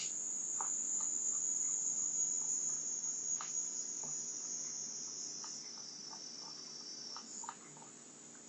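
A steady, shrill insect buzz that wavers and cuts off about seven seconds in, with a few faint ticks.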